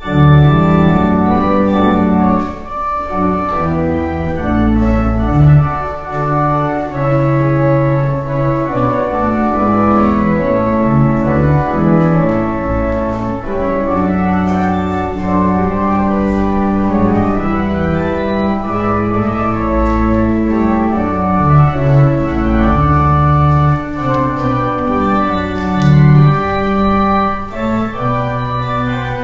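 Organ playing slow, sustained chords over a held bass line, starting suddenly at the very beginning.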